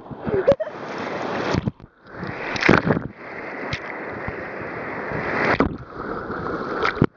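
Fast river rapids rushing and splashing right at a camera held at the water surface, a loud rushing hiss broken by a few sharp splashes. The sound drops away for a moment about two seconds in and again near the end.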